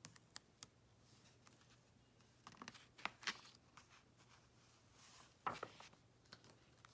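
Near silence, with faint rustles and light taps of a picture book's paper pages being handled and turned; the most distinct rustle comes about five and a half seconds in.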